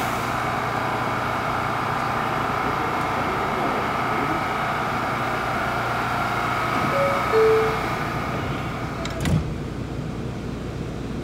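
Steady hum and whine of a subway train standing at the platform with its doors open. A short two-note falling tone sounds about seven seconds in, and a single knock about nine seconds in.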